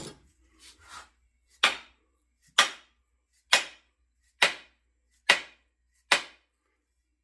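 Six sharp wooden knocks, about one a second, as a double-bit axe head is driven down onto its wooden handle to seat it.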